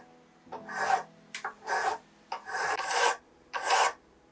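Flat hand file rasping back and forth across a brass lathe arbor's tang, its stroke guided by a double roller filing attachment: about five separate strokes, each around half a second long, with short pauses between.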